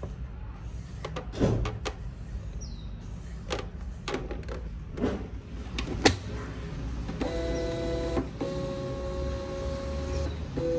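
Desktop thermal label printer being handled: a few plastic clicks and knocks, the loudest as the lid snaps shut about six seconds in. Then the printer's feed motor runs with a steady whine in two short spells, drawing the label stock through.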